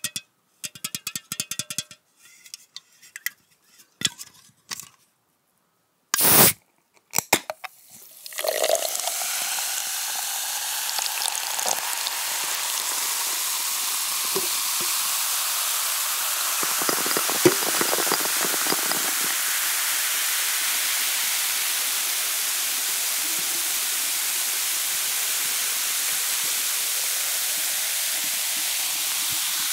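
A few clicks and taps and one sharp knock, then food hits hot oil about a third of the way in and sizzles loudly and steadily as it fries.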